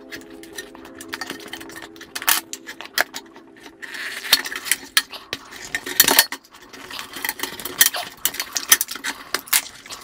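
Tire levers and hands working a rubber tire off the wheel rim of a Xiaomi M365 electric scooter: an irregular run of sharp clicks and clinks with scraping, busiest from about four seconds in.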